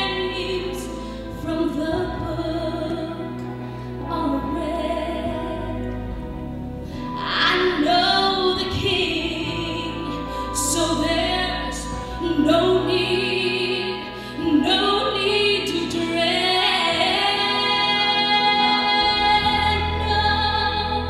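Woman singing a gospel solo into a microphone, with long held notes sung with vibrato, over a steady instrumental accompaniment.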